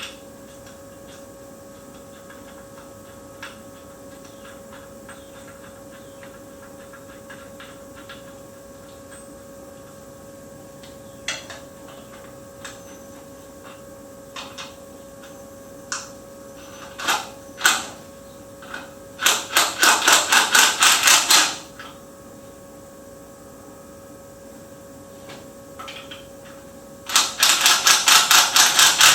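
Ratchet wrench running in the transmission's bell housing bolts: two bursts of fast, even clicking, about seven clicks a second, each lasting about two seconds, the second starting near the end. Before them come scattered single clicks and knocks of tools.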